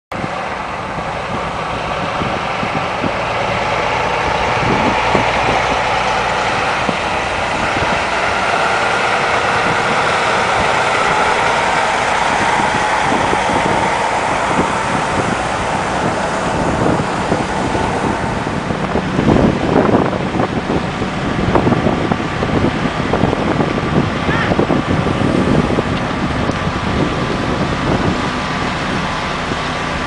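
A heavy truck's engine running, mixed with steady road noise and a faint whine. From about nineteen seconds in it turns rougher, with irregular knocks and rattles.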